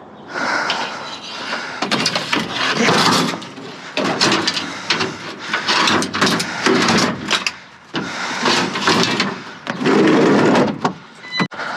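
Junk being rummaged through and moved about: irregular bursts of clattering, scraping and rustling with sharp knocks, separated by short pauses.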